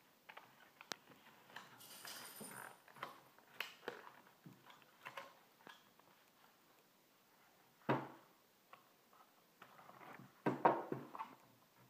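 A cardboard butter carton being opened by hand and a wrapped stick of butter pulled out: scattered small clicks and paper rustling, with a sharp knock about eight seconds in and a louder burst of crinkling and handling near the end.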